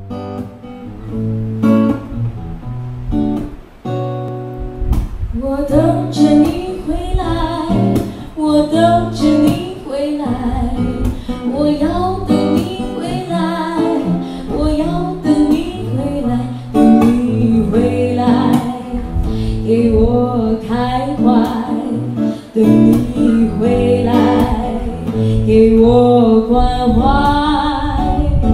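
Live song with a guitar accompaniment: a short guitar intro, then a woman singing from about five seconds in, the guitar carrying on under her voice.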